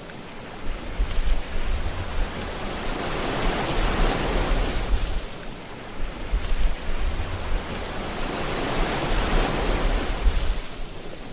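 Ocean surf: waves breaking and washing in, the rush swelling twice, about 4 seconds in and again around 9 seconds, over a low rumble.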